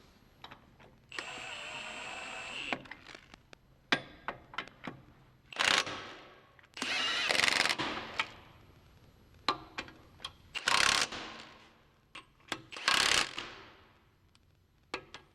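Impact gun running the cutter-wheel hub bolts in, in several short loud bursts, with clicks and clanks of bolts and socket being handled between them.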